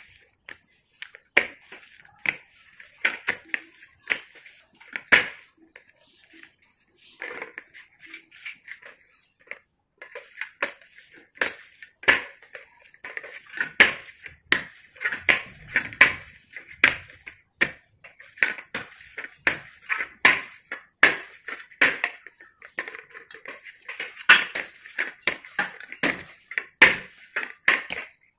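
Hands kneading and slapping a lump of damp slate-pencil powder dough in a steel plate: repeated patting and knocking of the dough and fingers against the metal plate, in quick runs with a quieter pause about a third of the way in.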